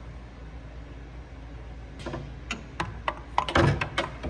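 Hand tools being handled in a metal tool-cart drawer: a few sharp clicks and knocks from about halfway in, with one heavier clunk near the end, over a steady low hum.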